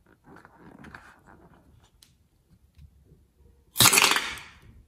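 Hands rubbing and handling a liquid-filled latex balloon, then about four seconds in a sudden loud spurt as the balloon's neck is opened and white liquid squirts out under pressure, fading within about a second.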